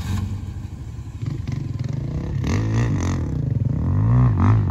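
A 4x4 SUV's engine working under load as the truck climbs a rutted dirt trail, revving up and back down twice.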